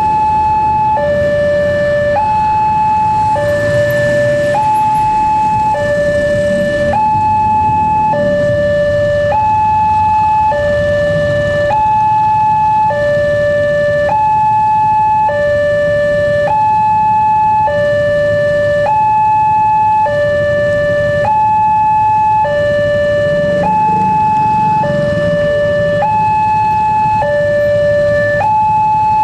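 Railway level crossing's electronic warning alarm sounding a two-tone alternating signal, a higher and a lower tone of about a second each, repeating evenly. Motorcycle engines run low underneath.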